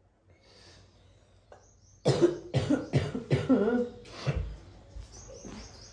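A woman coughing: a run of about five or six coughs in quick succession, starting about two seconds in.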